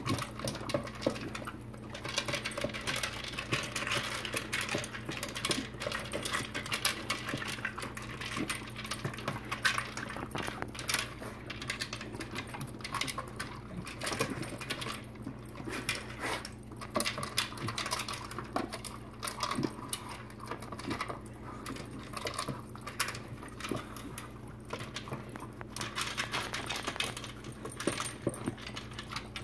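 Dogs eating from plastic slow-feeder bowls: food rattling and clicking against the bowls' maze ridges in a dense, irregular patter.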